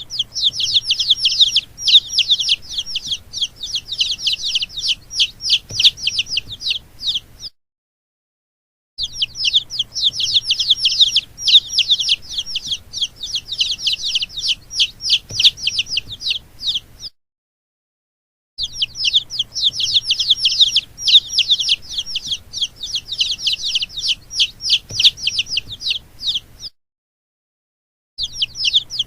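Baby chicks peeping continuously, a dense run of rapid, high, downward-sliding cheeps. The peeping comes in three stretches of about eight seconds, each broken off by a second or so of dead silence, with a fourth starting near the end.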